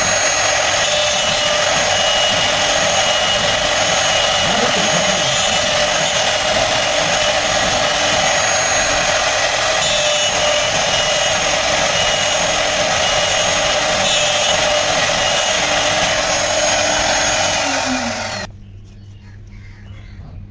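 CNC router spindle running steadily with a high whine as it cuts a wooden jali pattern; near the end its pitch falls and the sound drops away abruptly.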